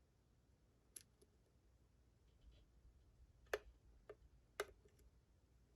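A few faint, sharp clicks of a lock pick working the pins of a lock under tension, one about a second in and a cluster of three near the middle.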